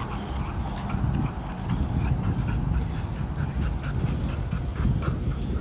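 A dog panting from exertion as it runs, with quick footfalls and a strong low buffeting rumble from the moving phone.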